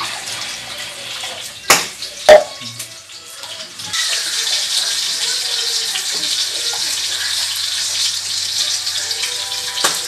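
Two sharp knocks of dishes against a stainless steel sink about two seconds in, then tap water running steadily into the sink from about four seconds on as dishes are rinsed.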